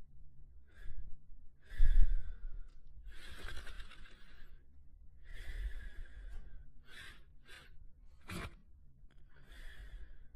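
A sleeping dog snoring softly: a string of airy, hissing breaths at uneven intervals. The loudest, with a low rumble, comes about two seconds in, and a short sharp snort comes near the end.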